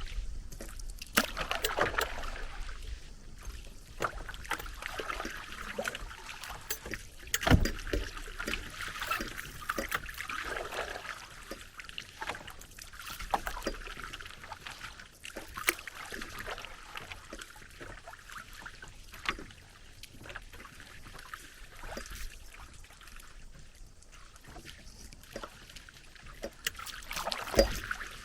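Paddling a small boat: paddle strokes swishing and dripping in the water, with irregular knocks and one louder thump about seven and a half seconds in.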